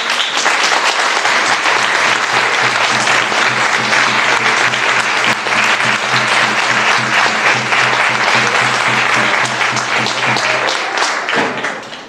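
Audience applauding loudly and steadily, with music underneath carrying a low, evenly pulsing beat; the applause dies away near the end.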